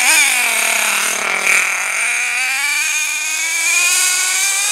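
Nitro RC monster truck's HPI F4.6 two-stroke glow engine revving as the truck drives. It blips at the start and winds down for about a second and a half, then climbs steadily in pitch as the truck accelerates away.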